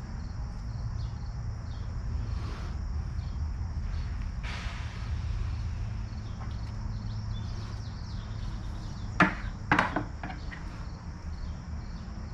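Crickets chirping in a steady, repeating pattern over a low hum, with two sharp clicks about half a second apart a little after the middle.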